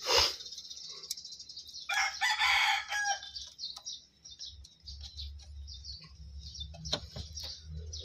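A rooster crowing once, for about a second, some two seconds in. A sharp click comes at the start and a few light clicks near the end, as a bolt is worked on behind a car's dashboard.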